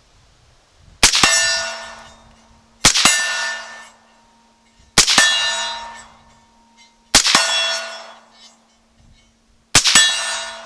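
Five suppressed shots from a 22-inch AR-15 with a SilencerCo Chimera suppressor, firing 5.56 M855 green-tip, spaced about two seconds apart. Each sharp report is followed by about a second of fading metallic ringing. The rifle feeds every round and locks the bolt back on the last; it sounds hearing safe with no baffle strikes.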